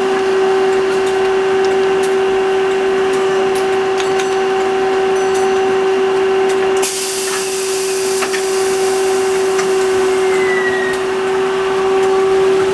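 Merseyrail electric multiple unit giving a steady electrical hum on one unbroken tone, joined about seven seconds in by a sustained hiss of escaping air.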